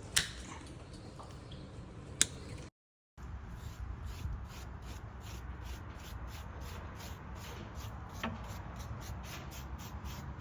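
Two sharp clicks near the start. After a brief cut, a hand tool rubs back and forth in quick, even strokes, about three a second.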